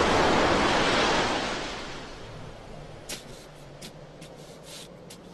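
Cartoon sound effect of a blast's rushing rumble dying away over the first two seconds, as dust clouds settle. After that it is much quieter, with a faint low hum and a few short sharp clicks.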